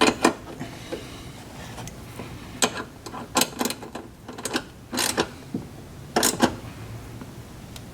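Hand tools and metal fasteners clicking and clinking during car reassembly work, in about six short bursts with quiet stretches between.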